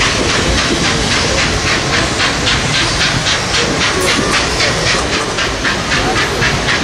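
Nickel Plate Road No. 765, a 2-8-4 Berkshire steam locomotive, working a freight train: its exhaust chuffs evenly at about four beats a second over a steady hiss of steam and the rumble of the cars on the rails.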